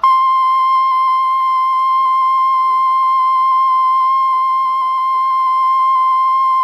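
Emergency Alert System attention tone: a single loud, steady high-pitched tone that starts abruptly and holds without change, the alarm signal that precedes an emergency broadcast message.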